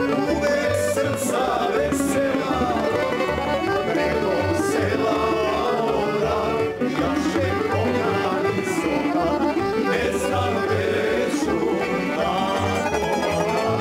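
A tamburica band plays a lively folk song live: plucked bas-prims and kontra, a plucked bass on the beat, and an accordion, with a male voice singing the melody.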